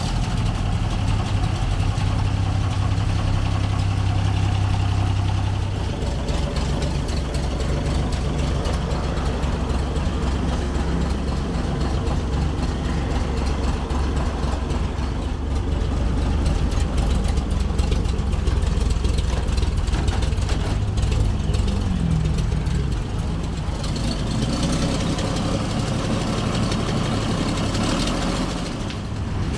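An old ZIL truck's engine idling steadily, with a slight rise in pitch about two-thirds of the way through.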